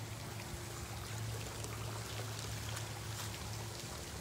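Faint steady hiss with a low hum underneath and a few light ticks: ambient outdoor background noise.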